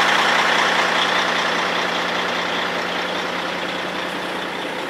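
Semi-trailer truck's diesel engine idling steadily, growing gradually fainter.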